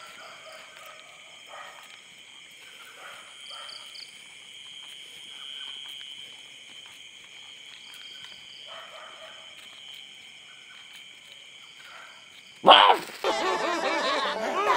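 Steady high-pitched chirring of night insects. About 12.5 s in, it is cut into by loud cartoon laughter from SpongeBob SquarePants and Patrick Star.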